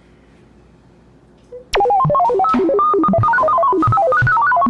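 Loud electronic jingle of quick, short stepped notes that starts suddenly about two seconds in and cuts off abruptly at the end. Before it there is only quiet room tone.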